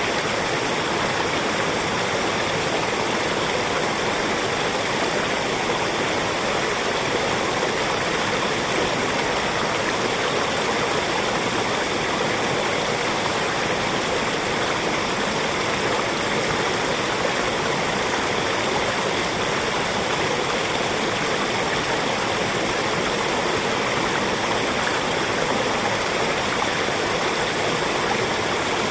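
Small forest mountain stream flowing over rocks, a steady rushing and splashing with no pauses.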